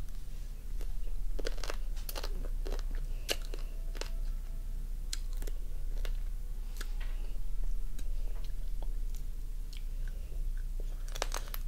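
A person eating raw lime-cured crab: chewing, with irregular sharp crunches and clicks as crab shell is bitten and cracked.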